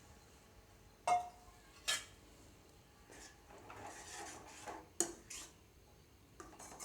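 Metal utensils clinking against a cooking pan: two sharp clinks about a second apart, the first ringing briefly, then soft scraping and another clink about five seconds in.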